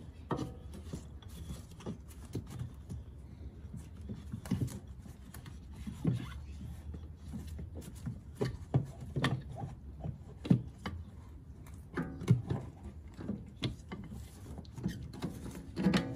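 Irregular knocks, clunks and rubbing from a metal camber plate being worked by hand into position against the strut top and strut tower in a car's wheel well.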